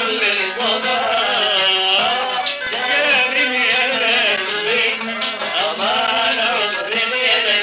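A male voice sings a melismatic Arabic muwashshah line, sliding through the notes, accompanied by plucked qanun and hand percussion. It is an early-1960s home tape recording with little top end.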